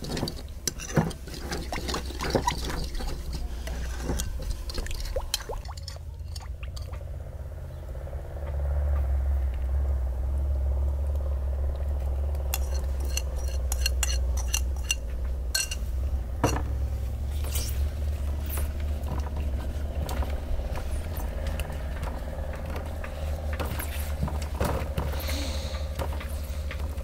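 Metal spoon clinking and scraping against a ceramic bowl while a paprika marinade is stirred. After that comes a steady low rumble with scattered light ticks.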